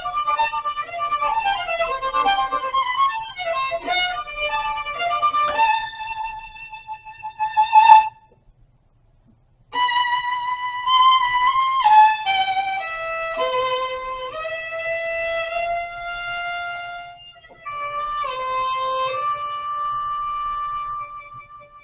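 Violin playing a melody: quick runs of notes that break off about eight seconds in. After a short pause come slower, held notes with gliding slides between them, which stop near the end.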